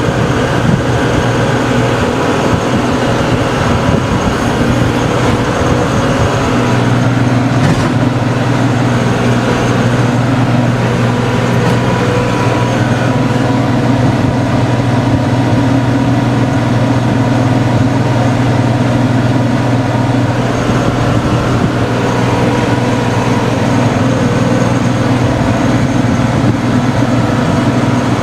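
Tractor engine running steadily at working speed with the PTO-driven rotary tiller engaged, turning wet soil.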